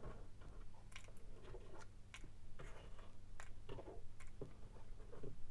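Faint, scattered light clicks and taps as broken pieces of a toy dinosaur egg are cleared up by hand on a tabletop.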